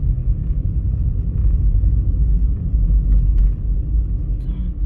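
Car driving along a town street, heard from inside the cabin: a steady low rumble of engine and road noise.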